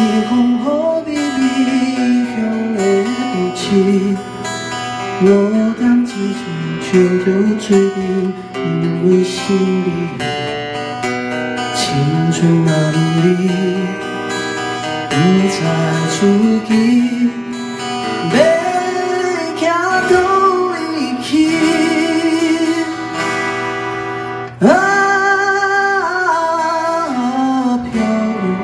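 Live acoustic performance: two acoustic guitars strummed and picked under male singing. The melody sits over the chords, with long held notes that waver in pitch in the later part.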